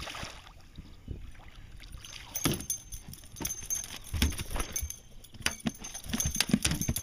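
A pike splashing at the surface as it is pulled to the boat, then flopping on the boat's deck: from about two and a half seconds in, irregular knocks and thumps with some rattling.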